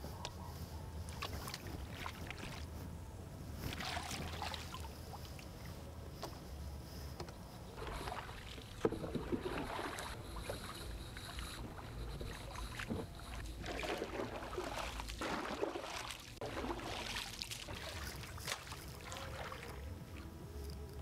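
Pond water splashing and lapping around a small wooden boat in irregular bursts as floating leaves are pulled out of the water.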